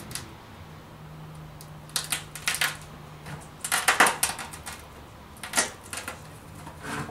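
Plastic clicking and crackling in several short bursts as a pry tool is worked along the seam of a Ubiquiti AirFiber 24's plastic cover, which is glued on.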